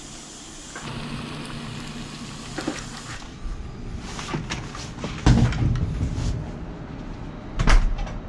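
Microwave oven running with a steady low hum, which stops about three seconds in. Then come scattered knocks and thumps, two of them loud, about five and seven and a half seconds in.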